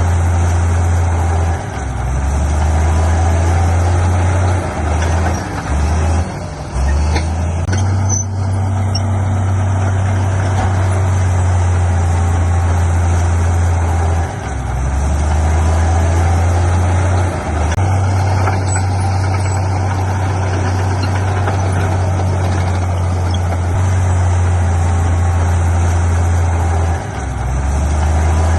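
Heavy diesel earthmoving machinery running under load. The low engine drone shifts in pitch and dips briefly several times as the load changes, over a steady mechanical clatter.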